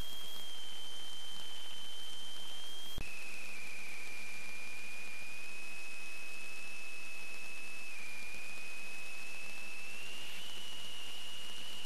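Steady electronic hiss with a thin, high-pitched whine from a sewer inspection camera's recording. The whine drops slightly in pitch with a click about three seconds in and creeps back up near the end.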